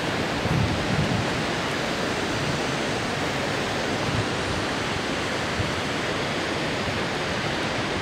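Calandula Falls, a large waterfall, making a steady, even rush of falling water.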